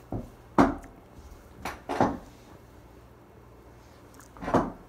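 Knocks and rustles of a person moving about close to the microphone: a sharp thump about half a second in, two more knocks near two seconds, and a rustle near the end.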